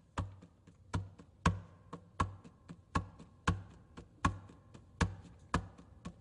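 Steady rhythmic tapping: a sharp tap with a low thump about every three-quarters of a second, with lighter taps in between, like a percussion beat.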